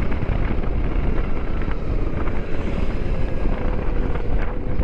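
Wind buffeting the microphone and road noise while riding a Zero DSR-X battery-electric motorcycle, with a faint whine that sags slightly in pitch from about halfway through.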